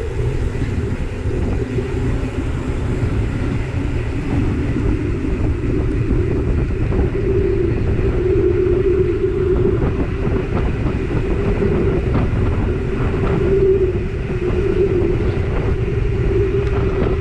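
Mountain bike rolling fast over paved streets, heard from a camera on the bike or rider: heavy wind rumble on the microphone, a steady tyre hum that wavers a little, and a few light knocks from the bumps.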